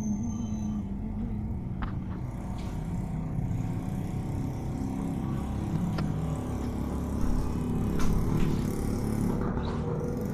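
Street traffic: a motor vehicle engine running steadily, with a few sharp clicks.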